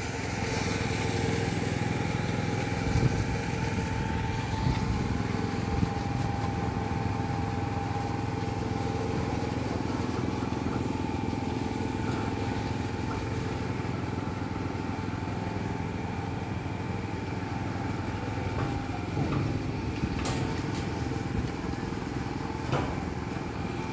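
Steady drone of construction machinery engines running during a concrete pour, with a couple of faint knocks near the end.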